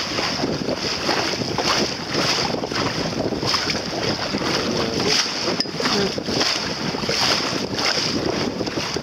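Water rushing and splashing along a small boat's hull as it moves through choppy sea, with wind buffeting the microphone. The sound is a steady, dense wash with recurring slaps of water.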